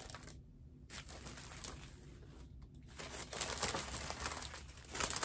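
Small plastic zip bags of diamond-painting drills crinkling and rustling as they are handled, louder for a stretch from about three seconds in, with a short click near the end.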